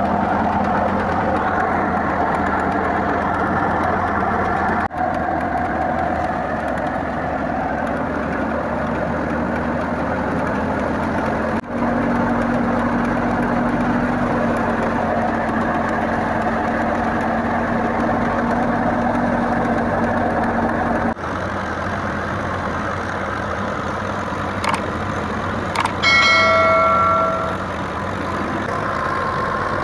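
Fiat 640 tractor's diesel engine running steadily under load as it drives a wheat thresher by belt, with the thresher's drum and fan making a dense steady whirr. A brief loud ringing tone sounds near the end.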